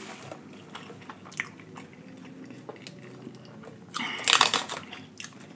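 Faint paper rustles and small clicks, then, about four seconds in, a short, loud crackling tear as a peel-off paper game piece is pulled from a fast-food drink cup.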